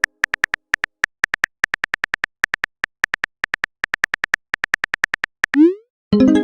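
Rapid electronic text-typing blips, about eight a second, then a short loud rising swoop sound effect about five and a half seconds in, followed by a held synthesizer chord near the end.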